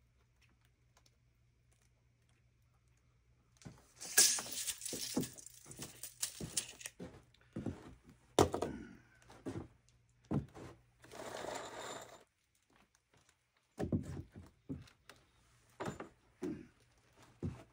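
Near silence, then from about four seconds in a run of irregular knocks, thunks and scrapes, with a pause of about a second and a half before the knocking resumes.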